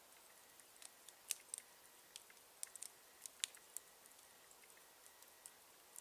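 Campfire crackling: burning wood giving off faint, irregular sharp pops and ticks over a quiet background, most frequent in the middle.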